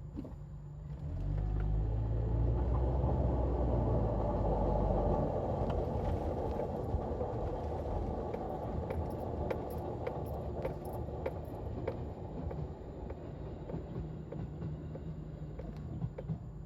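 Honda StepWGN on the move, with a droning rumble from the running gear that the owner suspects is a failing wheel hub bearing. It swells about a second in, stays strongest for several seconds, then slowly eases off.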